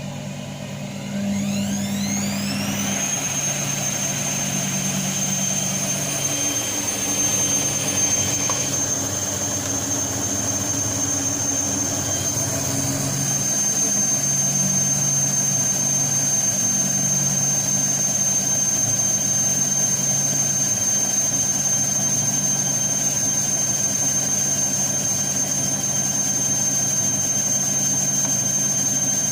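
Balay T-8295 washing machine spinning: the motor whine rises steeply in pitch over about two seconds as the drum speeds up, then holds as a steady high whine over a low hum. It gets a little louder about halfway through.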